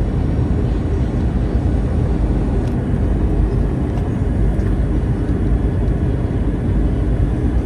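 Steady roar of Airbus A321 cabin noise: engines and airflow droning evenly from inside the cabin, with no sudden changes.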